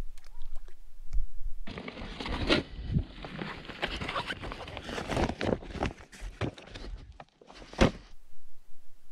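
Camping gear being pulled out of the back of a van and a folding camping chair being handled: rustling fabric with a run of knocks and clicks, and one sharper click near the end before it cuts off suddenly.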